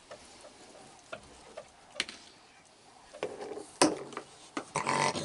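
Raccoons feeding on a wooden deck: scattered light clicks and taps, the loudest nearly four seconds in, with a quicker run of them near the end.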